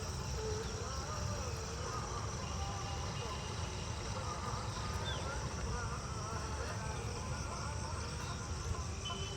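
Insects, crickets or similar, chirring in a steady high-pitched drone, over a low rumble.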